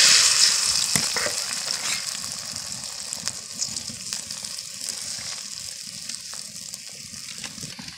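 Beaten eggs sizzling in hot oil in a wok, loudest as they are poured in and fading steadily as they set. A metal spatula scrapes and taps the pan a few times.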